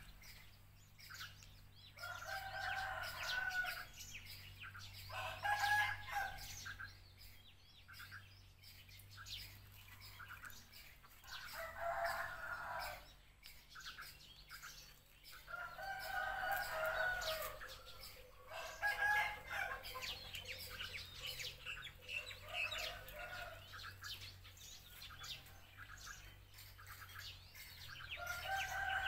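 Faint chickens calling every few seconds, about eight calls of one to two seconds each.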